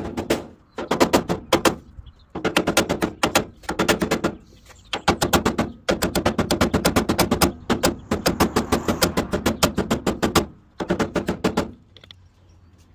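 Rapid runs of light hammer taps on a billet aluminum LED taillight housing, driving it into a pickup's rolled steel bed rail. The taps come in several quick bursts with short pauses and stop about a second before the end.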